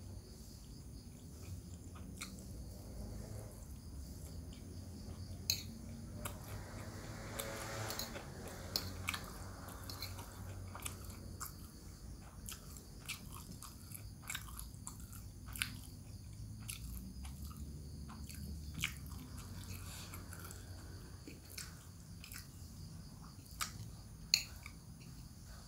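Close-up chewing and mouth sounds of a person eating a sayur rebung (young bamboo shoot) meal, with a metal spoon clicking against the glass bowl many times, the sharpest click near the end.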